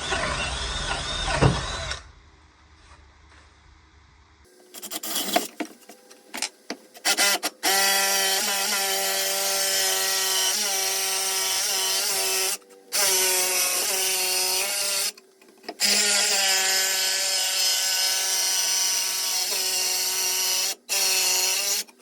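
Electric drill boring holes through a 2×10 board. A short burst of drilling comes first, then a pause with a few knocks. Then the drill runs in long steady whining stretches, stopping briefly about three times.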